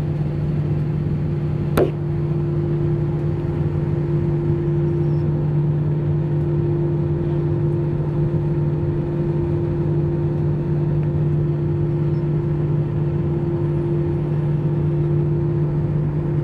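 Airliner cabin noise while taxiing: the jet engines run at taxi power with a steady hum through the cabin. About two seconds in there is a sharp click, after which a second, higher steady tone joins the hum.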